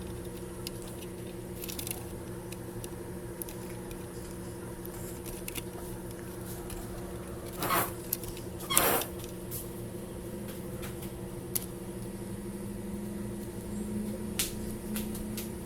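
Small clicks and handling noises of repair work on a TV's HDMI ports, over a steady electrical hum. Two short rushing noises come about eight and nine seconds in.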